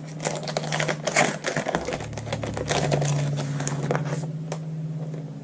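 Paper and plastic packaging rustling and crinkling in the hands, with quick irregular clicks, as a pack of gift labels is opened and handled.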